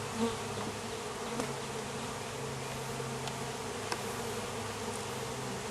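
Steady buzzing hum of a swarm of honey bees flying around an open top bar hive during installation, with a few faint clicks.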